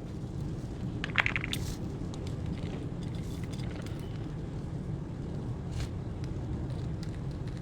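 Budgerigars pecking and cracking seed: faint scattered clicks, with one short high budgie chirp about a second in, over a steady low rumble.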